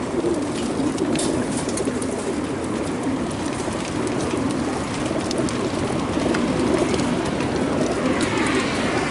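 A large flock of racing pigeons cooing together in the compartments of a transport trailer, a continuous low, dense cooing murmur. Scattered light clicks and taps sound through it.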